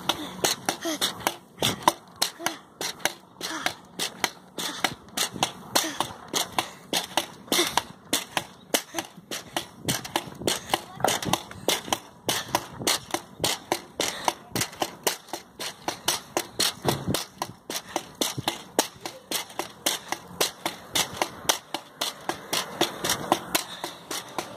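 Rapid, regular clacks, several a second, over a steady rolling rumble: a skateboard's wheels riding over pavement joints and cracks.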